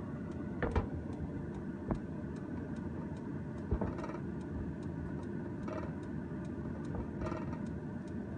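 Chicken wings cooking in reducing soy sauce in a frying pan: light bubbling pops and ticks over a steady low hum, with a few sharper clicks in the first four seconds.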